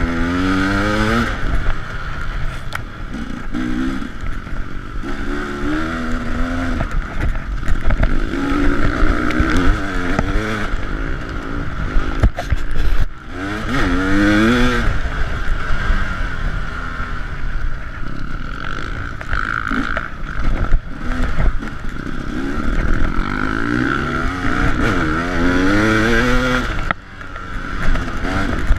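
KTM 300 EXC two-stroke single-cylinder dirt bike engine revving up and down again and again as it is ridden hard off-road, with short knocks and rattles of the bike over rough ground. The throttle drops off briefly about halfway through and again near the end.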